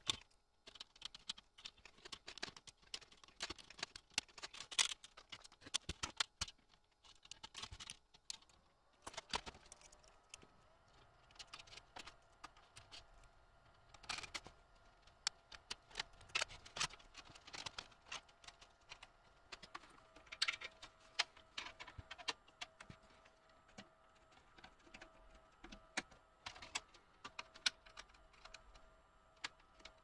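Scattered small clicks, taps and rattles of hands fitting a plastic 2.5-inch drive holder and cables into a metal rackmount server case. A faint steady tone comes in about ten seconds in.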